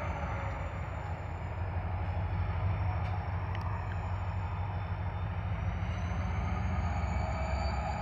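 Diesel locomotives running with a steady low rumble as they move off down the track.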